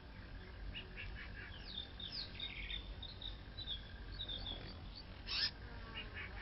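Birds chirping in a countryside ambience: many short, high chirps and sweeps, with one louder burst about five seconds in, over a faint steady high tone.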